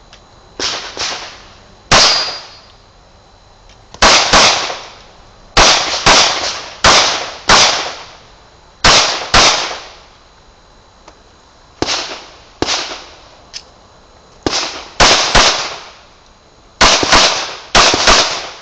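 Pistol shots from a .40 S&W Glock 27, fired in quick pairs and strings of three with pauses of a second or two between groups. This is a timed string of fire on an IDPA stage. Each shot is a sharp crack with a short ringing echo.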